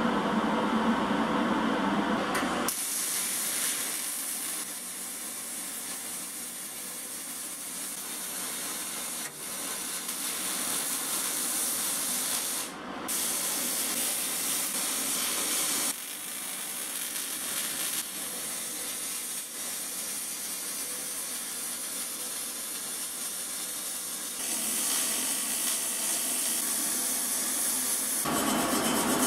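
MIG/MAG welding arc on sheet steel, an even high crackling hiss with a short break near the middle. It grows louder again near the end. A different, lower-pitched noise fills the first couple of seconds.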